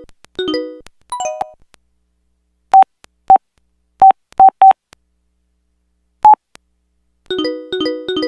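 Samsung SPH-A840 (Vivo) cell phone playing a ringtone: short electronic melody notes that stop early on. These give way to five quick single-pitch beeps, then one more, before the melody starts again near the end.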